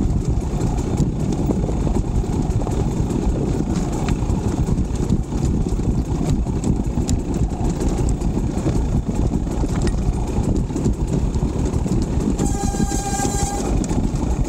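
KTM 300 XC two-stroke dirt bike engine running steadily while being ridden, under a dense low rumble. Near the end a steady, higher engine note comes in.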